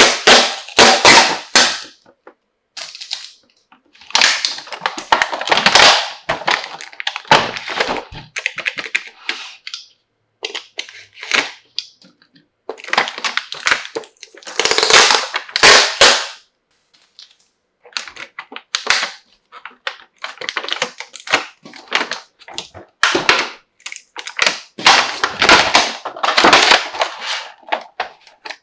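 Plastic toy tea-set pieces and their packaging being handled: irregular bursts of crinkling and clicking plastic, with short pauses between them.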